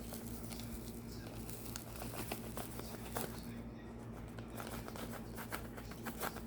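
Light clicking and crinkling from handling a container of Himalayan pink salt, getting the salt out to sprinkle into bone broth. The clicks grow denser in the second half. A steady low hum runs underneath.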